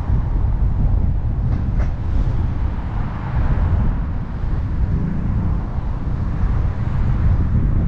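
Wind buffeting the microphone of a camera mounted outside a moving car, a steady low rumble mixed with road and traffic noise. The noise swells briefly about three seconds in.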